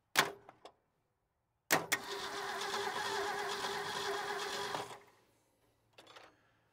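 Starter cranking the Ford F350's 360 cubic-inch FE V8 steadily for about three seconds without it catching, then stopping abruptly. This is a spark check with the ignition points freshly sanded. A sharp click comes just before it, near the start.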